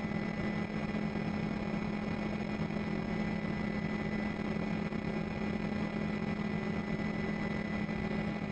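Steady drone of a helicopter's engine and rotors, heard from on board, with a constant low hum and a faint high whine.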